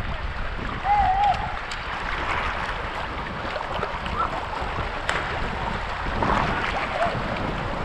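Paddle strokes splashing and water sloshing along a sea kayak's hull, with wind buffeting the microphone. A brief warbling tone sounds about a second in.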